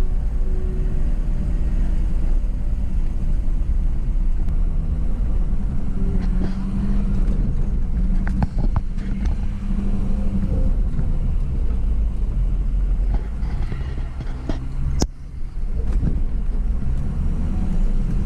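Truck engine running at low speed over a rough dirt trail, with a steady rumble and a few knocks and rattles from the bumpy track, including a sharp knock about fifteen seconds in.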